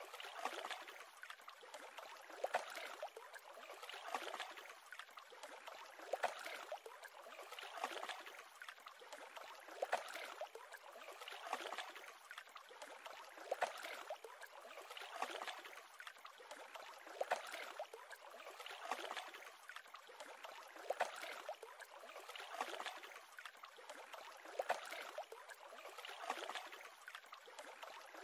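Small waves lapping at a lakeshore, a soft wash of water about every two seconds.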